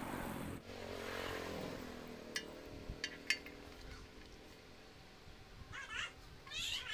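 A vehicle engine passing in the background, its pitch falling as it fades over the first two seconds. Then a few light clicks as steel parts are handled, and near the end a quick run of short scrapes as a drilled steel strip is fitted onto a steel rod.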